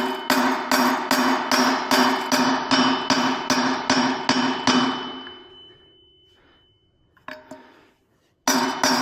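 Hammer blows driving a worn wheel bearing out of a Yamaha XT225 dirt bike wheel hub, struck in a fast steady rhythm of about four a second with the metal wheel ringing after each hit. The blows stop after about five seconds and the ringing dies away, one lone strike comes later, and the rapid hammering starts again near the end.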